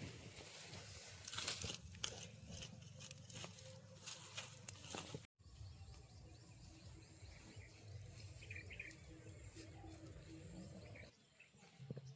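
Crunching and tearing of plants and dry leaves, as when weeds are pulled by hand, with quick crackling clicks in the first half. After a sudden cut the crackling gives way to quieter outdoor ambience with a short bird chirp.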